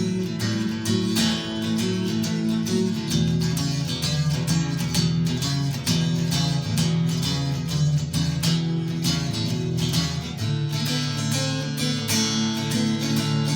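Telecaster electric guitar on its neck pickup playing strummed chords with a clean tone, over a recorded song with a bass line. The chords change about three seconds in and again near ten and a half seconds.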